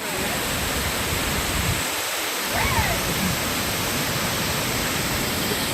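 Silver Cascade waterfall rushing: a steady, loud wash of falling water.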